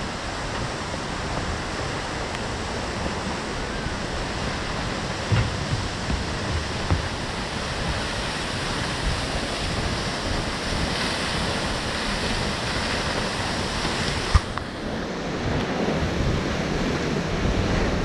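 Steady rushing of Svartifoss waterfall and its stream, with wind on the microphone. One sharp knock comes about fourteen seconds in, after which the rush turns duller and fuller.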